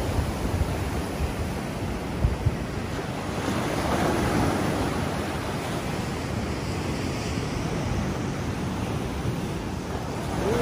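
Ocean surf breaking and washing up a sand beach in a steady, surging roar, with wind buffeting the microphone.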